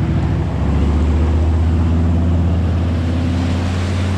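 Vehicle engine running with a steady low drone that gets deeper and louder about half a second in.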